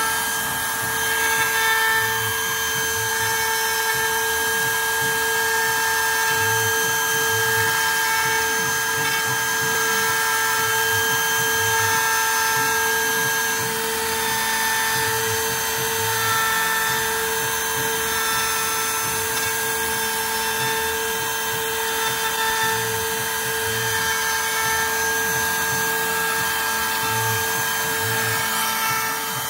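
Home-built CNC router's spindle running with a steady high whine as its bit cuts into a wooden board. A low rumble from the cutting swells and fades every couple of seconds.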